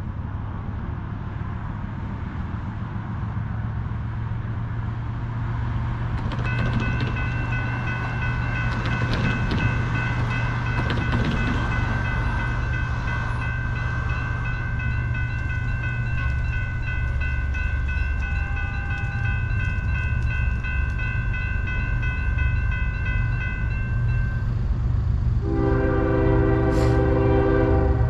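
Railroad grade-crossing warning bell ringing rapidly from about six seconds in until a few seconds before the end, over a steady low rumble. Near the end a Norfolk Southern locomotive's air horn sounds a loud multi-note chord as the train approaches the crossing.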